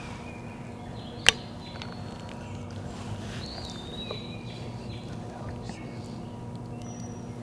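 Small woodland birds chirping and whistling sparsely over a steady hush, with one sharp click about a second in.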